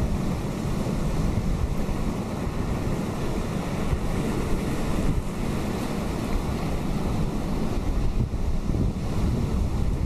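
Atlantic surf breaking steadily on the rocks and shore as a continuous rush, with a low, uneven rumble of wind on the microphone underneath.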